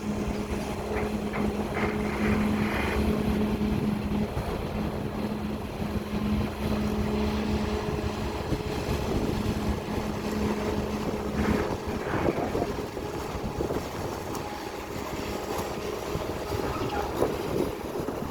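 Diesel engine of a CAT320 long-reach excavator running under work, with a steady hum that drops away about two-thirds of the way through.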